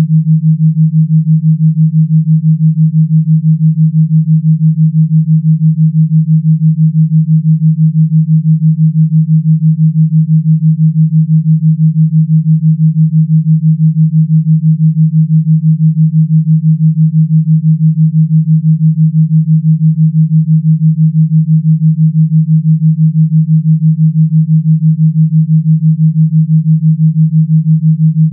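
A steady, low electronic pure tone, pulsing quickly and evenly in loudness: a synthesized brainwave-entrainment tone with no music.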